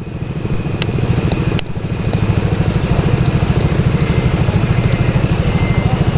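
Vehicle engine idling with a fast, even pulsing, rising in level over the first two seconds and then steady; two sharp clicks about a second in.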